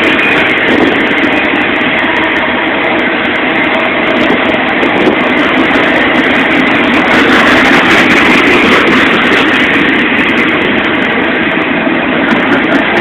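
Intermodal freight train cars rolling past: a loud, steady rumble and rattle of steel wheels on the rails as double-stack container cars go by.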